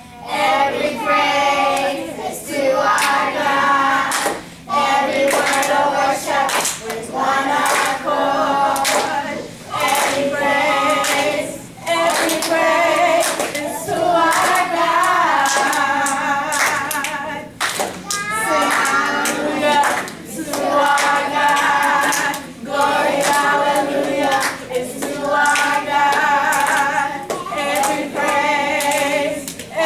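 A vocal group singing a gospel song a cappella, in several voices, phrase after phrase with short breaths between.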